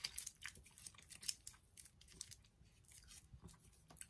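Faint, close-up chewing of a hard, sticky chocolate-coated caramel: irregular small wet clicks and smacks of the mouth working the toffee.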